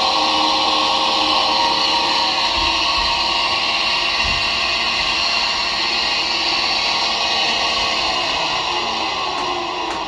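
Faulty dryer fan running with a steady grinding whine; a little before the end its pitch starts to fall as it slows down.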